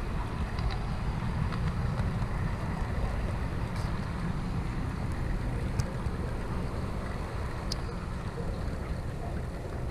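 HO-scale model train running along its track, heard from a camera riding on it: a steady low rumble with three sharp clicks.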